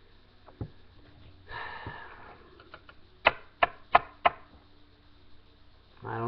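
A sniff, then four sharp clicks about a third of a second apart.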